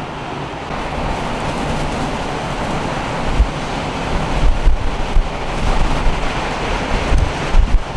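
Strong blizzard wind blowing in a steady rush, with gusts buffeting the microphone in low thumps several times in the second half.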